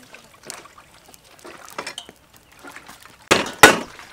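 Knife chopping a raw whole chicken on a round wooden chopping board: two hard chops close together near the end, the second sharper. Before them, only faint handling sounds.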